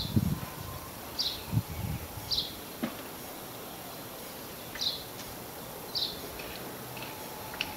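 A small bird chirping outdoors: short high chirps repeated about once a second, with a few soft low rustles in the first two seconds.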